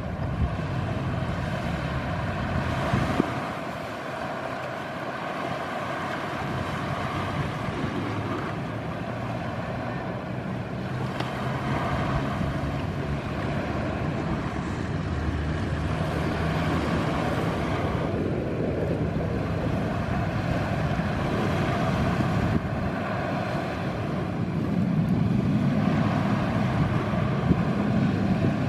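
Boeing 737 jet engines running steadily just after takeoff: a continuous rush with several steady tones in it, with wind buffeting the microphone. The low rumble grows louder in the last few seconds.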